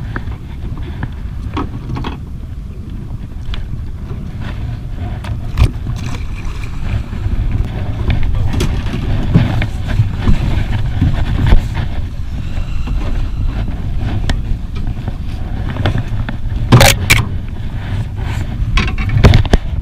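Small boat on open water: a steady low rumble of wind and water, with scattered knocks of gear on the boat and a louder clatter about seventeen seconds in.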